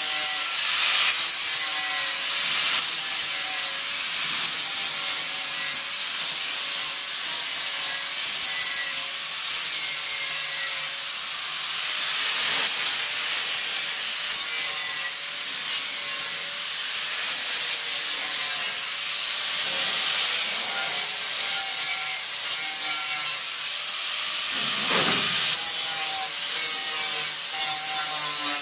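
Handheld grinder with a green abrasive disc sanding the edge of a steel inner wing panel in repeated short passes. The motor's whine wavers in pitch and the level dips between passes.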